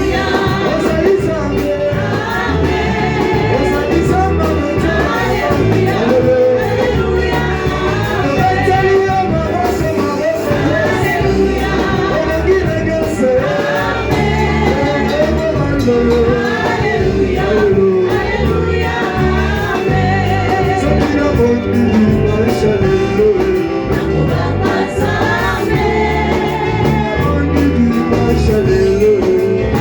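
Gospel music: singing over a steady instrumental accompaniment, continuous and loud throughout.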